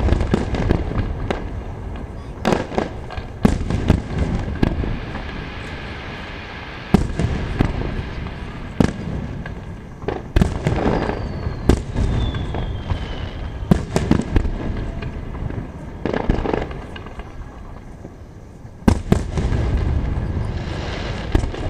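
Starmine fireworks display: aerial shells bursting in quick succession, sharp bangs every second or so over a continuous rumble. A dense volley comes about three-quarters of the way through and stays louder to the end.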